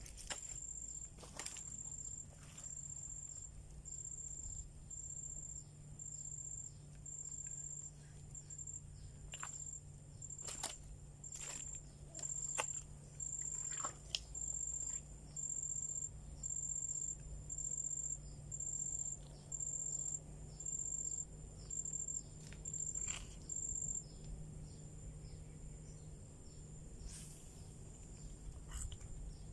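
An insect chirping on one high note, about once a second, stopping about 24 seconds in, over a low steady hum, with a few scattered clicks.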